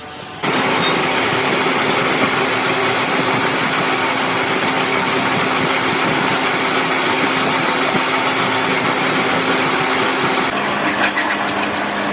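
A machine running steadily with a hum, starting abruptly about half a second in. Its hum drops to a lower pitch near the end, with a few sharp clicks.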